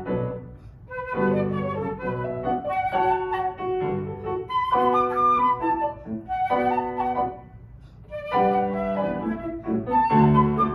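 Concert flute and grand piano playing together: the flute carries a melody in short phrases, separated by brief pauses, over piano accompaniment.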